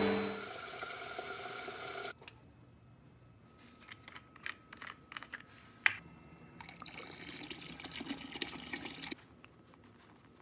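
A vacuum cleaner's hum dies away over the first two seconds. Scattered light clicks and knocks follow. From about six seconds in, cleaning solution is poured from a bottle into a plastic bucket, a liquid pouring sound that stops abruptly near nine seconds.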